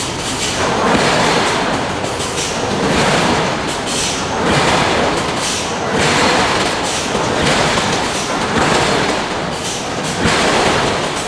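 Loud, steady industrial noise from a steel forge shop, the machinery of a hydraulic forging hammer at work, swelling and easing about every one and a half seconds with no distinct hammer blows.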